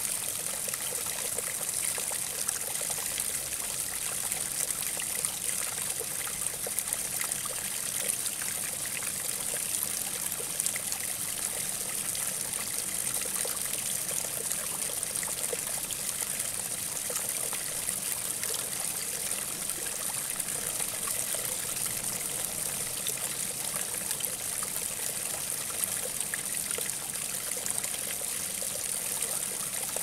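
Water trickling steadily.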